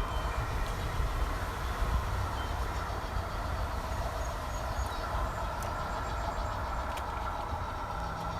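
G-scale model locomotive running on garden track: a steady electric motor and gear hum over a low rumble.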